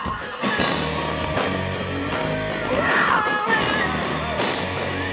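Live rock band playing distorted electric guitars, bass and drums, with a woman's voice singing over them. It is heard from within the crowd through a small camcorder's built-in microphone.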